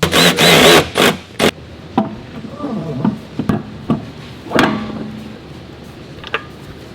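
Workshop clatter: a loud noisy burst lasting under a second at the start, then a string of sharp knocks and clunks with a few short squeaks.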